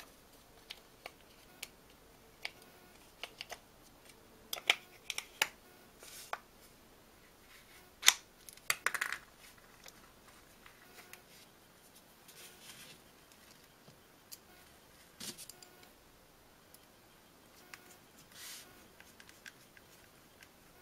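Sharp plastic clicks and snaps of a flip-key remote shell being pressed together and handled, the loudest snap about eight seconds in, with softer rubbing and scraping of the plastic in between.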